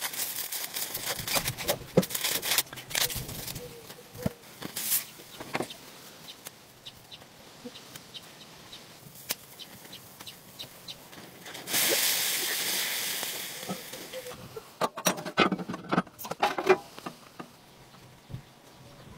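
Food-preparation handling sounds: scattered knocks, clicks and rustling as corn is handled and set into a pan of boiled crayfish, with a steady hiss of about two and a half seconds near the middle.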